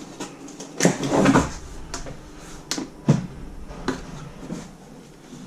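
Cardboard packaging of a laptop box being opened and handled: a series of short knocks, clicks and scrapes, with a brief cluster about a second in.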